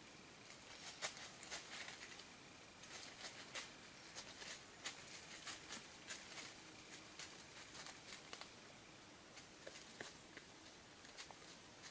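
Faint, irregular clicks and crackles of dry leaf litter and twigs being disturbed on the forest floor, thinning out about two-thirds of the way through.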